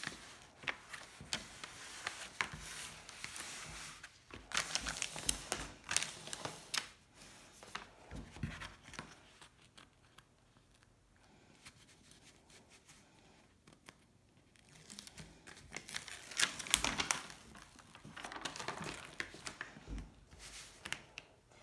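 Diamond painting canvas and its clear plastic cover film crinkling as the canvas is unrolled and smoothed flat by hand, in bursts with a quieter stretch in the middle.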